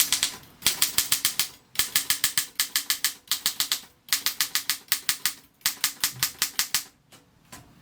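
Consul 224 portable typewriter being typed on: its typebars strike the platen in quick runs of about seven keystrokes a second, in several bursts with short pauses, stopping about seven seconds in.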